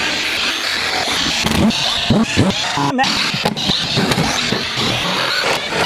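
Cordless drill backing out rusty screws, the motor running hard with a whine that rises and falls, stopping briefly about three seconds in and cutting off at the end.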